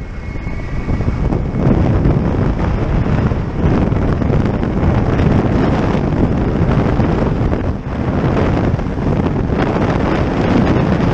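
Heavy wind rush buffeting a helmet-mounted microphone in the open seat of a flexwing microlight trike in flight, rising and falling unevenly, with the trike's engine running beneath it.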